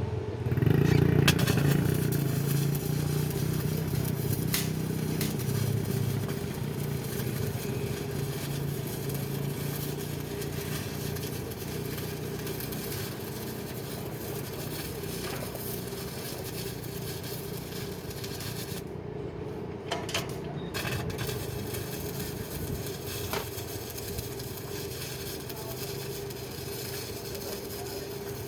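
Electric arc welding on a pipe: a steady crackling hiss over a low hum. The crackle breaks off briefly about 19 seconds in and then resumes.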